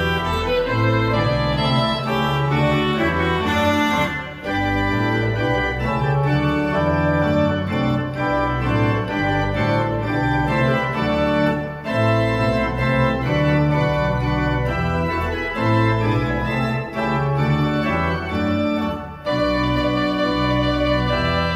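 Pipe organ playing a trumpet tune in G major: a melody over chords and a low bass line, with short breaks between phrases.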